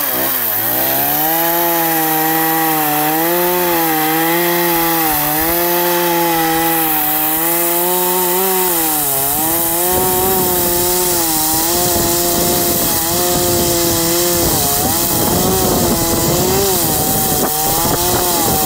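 Kawashima two-stroke chainsaw running at high revs while cutting through a log, its engine pitch sagging and recovering as the chain bites into the wood.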